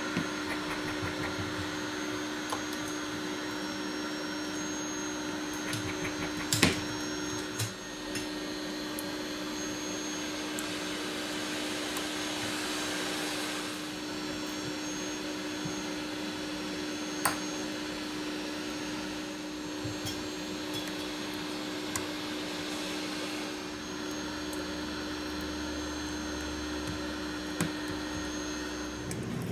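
Steady whirring drone of a small fan or motor with a constant low hum. A few sharp clicks of small tools and parts being handled stand out, the loudest about six seconds in.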